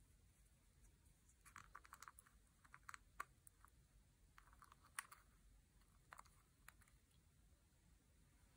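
Faint plastic clicks and taps from handling a small plastic toy figure and a plastic glitter pot, in short irregular clusters with a few sharper single clicks.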